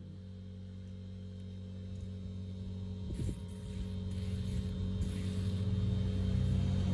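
Steady low motor hum growing steadily louder, with a hiss of aerosol cleaner sprayed from a can about three seconds in.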